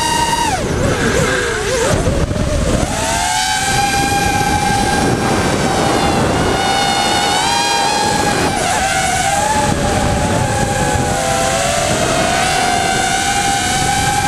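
Electric motors and propellers of a camera-carrying RC drone whining in flight, with wind rushing over the camera. The whine drops sharply about a second in as the throttle is eased, then climbs back and holds. Later the several motor tones drift apart and back together as the craft manoeuvres.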